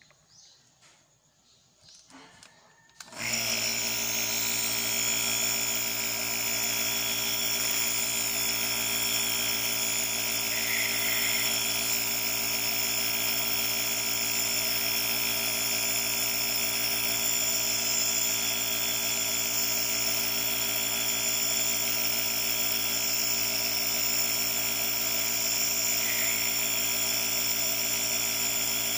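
Nebulizer air compressor switched on about three seconds in, then running steadily with a motor hum and a hiss of air. It is driving air up the hose into the medication cup to turn the solution into mist in the face mask.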